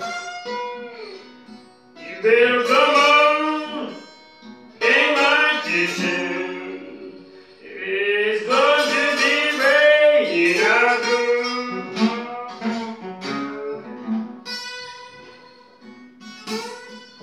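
Acoustic guitar playing slow blues, with a man's voice singing over it in several long, wavering phrases.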